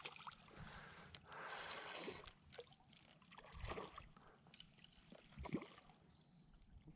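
Faint water sounds, light splashing and trickling, with a few small knocks, including a brief louder splash about a second and a half in.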